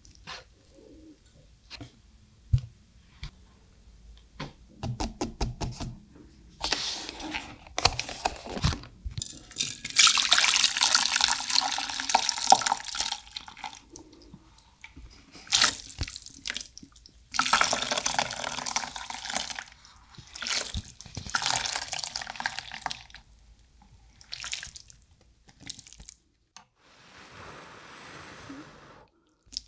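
Malatang cup noodles and their hot broth poured from the cups into a large bowl in several long pours, after a run of light chopstick clicks and taps against the cups. Near the end, chopsticks stir the noodles and broth in the bowl, more softly.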